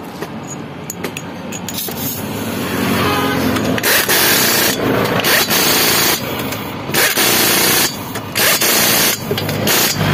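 Pneumatic impact wrench hammering in repeated bursts of about a second each, with short pauses between, as it tightens the lug nuts on a car's steel wheel. The bursts start about four seconds in.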